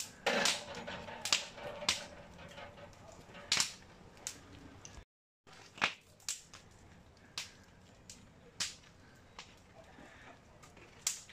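Open wood fire crackling, with sharp irregular pops and snaps, often a second or less apart. The sound drops out for about half a second near the middle.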